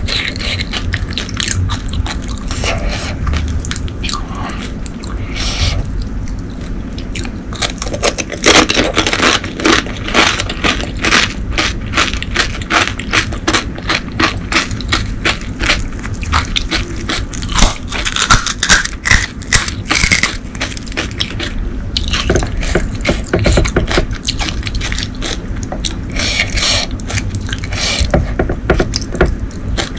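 Close-miked crunching of crisp, hollow panipuri (golgappa) shells: shells cracked open with the fingers and filled, then crunchy bites and chewing, as a long run of sharp crackles.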